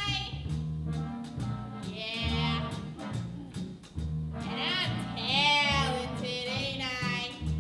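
Live show-tune accompaniment: an upright bass plucks steady low notes under a woman's singing voice, which comes in two phrases, the second longer and wavering on its held notes.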